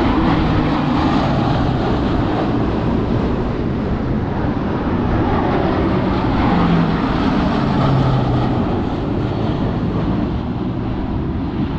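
Low-flying four-engine turboprop transport plane passing overhead: a loud, steady engine and propeller drone whose low hum drops in pitch as it goes by, easing off slightly near the end.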